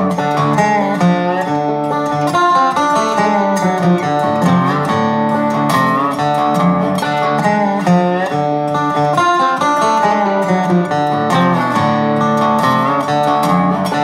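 Instrumental background music led by plucked guitar, with some notes that bend in pitch.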